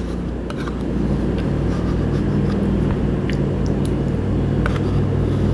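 A steady low mechanical hum runs throughout, with a few light clicks of a metal spoon against a plastic yogurt cup.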